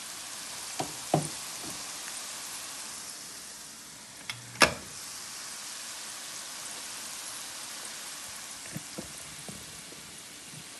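Peanuts and garlic frying in oil in a skillet, a steady sizzle, the nuts browned and nearly done. A few knocks as the spatula strikes the pan, the sharpest about halfway through.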